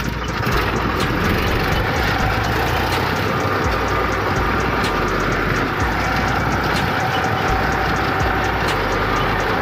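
Farm tractor's diesel engine running steadily as the tractor drives along, heard close up from the driver's seat, with a constant clattering rattle over the low engine rumble.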